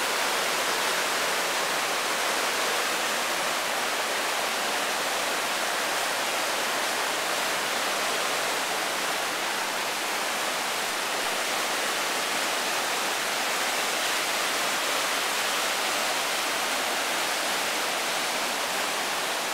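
Whitewater river rapids rushing over rocks: a steady, unbroken roar of water.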